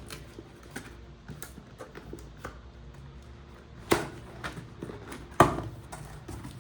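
Cardboard box being opened and handled: small scattered clicks and scrapes, with two sharp knocks about four and five and a half seconds in, the second the louder.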